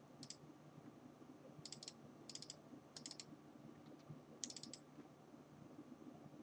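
Faint computer mouse clicks in quick groups of two to four, about five groups, as folders and a file are double-clicked open, over a low steady hum.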